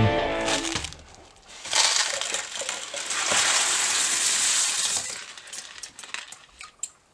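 Water poured into a paludarium's shallow water section over gravel, a steady splashing pour for about three seconds, followed by a few scattered light ticks.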